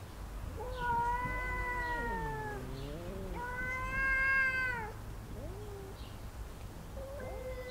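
Two domestic cats yowling at each other in a face-off. There is a long drawn-out wail about a second in, with a lower, wavering yowl from the other cat overlapping it. A louder wail comes around four seconds in, and another begins near the end.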